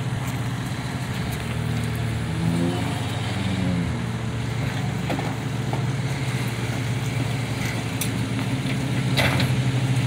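Takeuchi compact track loader's diesel engine running steadily as the machine drives on its tracks, with a short sharp clank a little after nine seconds and the engine a little louder from then on.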